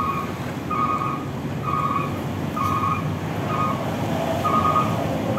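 An electronic beeper sounding a short, single-pitched beep about once a second, over a steady rush of wind and road noise from riding at speed.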